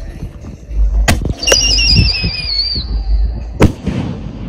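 Whistling serpent salute shell firework: a sharp crack about a second in, then a warbling whistle that sinks slightly in pitch for about a second and a half, ending in a loud salute bang.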